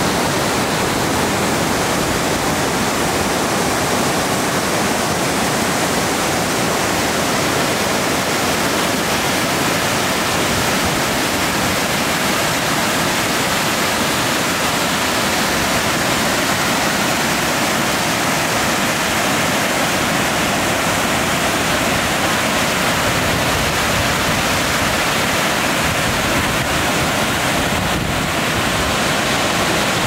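Emerald Creek Falls cascading over rock slabs: a steady, unbroken rush of falling water.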